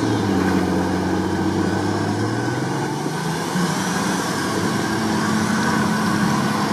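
Engines of 4x4 off-road SUVs working under load through deep sandy ruts. The engine note rises and falls as they are revved.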